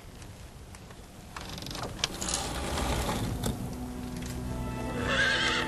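Horse hooves clopping and a horse whinnying near the end, over film score music that swells into a held chord.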